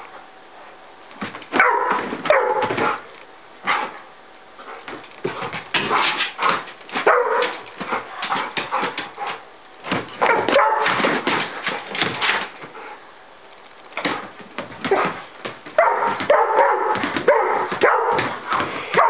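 Pit bull barking, yipping and whining in excited bursts while it lunges after a flashlight spot, with short pauses between the flurries.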